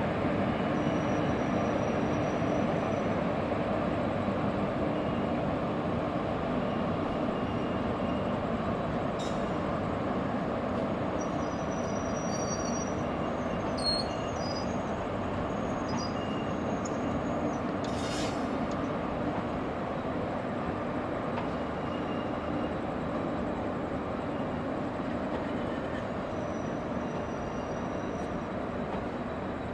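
Steady running noise of a WAP1 electric locomotive and its train, with a few faint high-pitched squeals near the middle.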